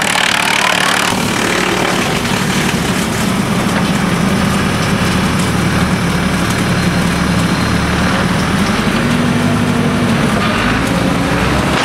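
Skorpion 500EB stationary drum wood chipper running steadily, a loud machine hum whose pitch wavers slightly. A brighter rushing noise at the start fades out about a second in.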